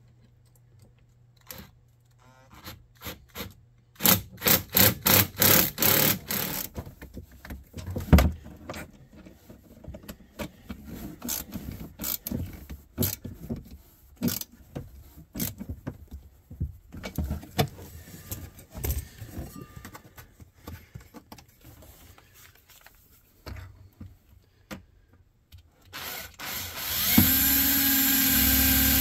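Clicking, knocking and rubbing of hand tools and parts as heater hoses are fitted to a cab heater box, with a rapid run of clicks about four seconds in. About 27 seconds in, a power drill starts and runs steadily.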